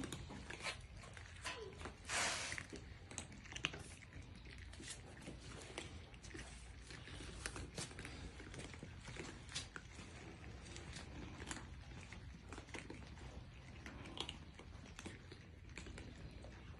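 Several cats eating dry kibble: many small, irregular crunches and clicks of chewing. A brief louder rushing noise comes about two seconds in.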